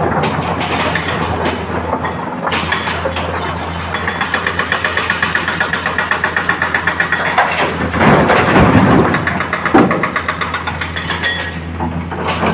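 Excavator diesel engine running under load, with a steady low hum and a stretch of even pulsing. Loud rough crunching bursts come about eight and ten seconds in, as rock and earth are handled.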